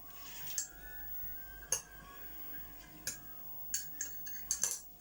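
Light, irregular clinks and taps of tableware, a spoon or fork against a cup or plate, about eight in all and bunched together near the end.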